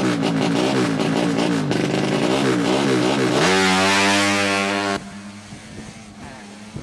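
200cc drag-bike engine revving in quick throttle blips, its pitch swinging rapidly up and down, then held at a steady high rev for about a second and a half before cutting off suddenly about five seconds in.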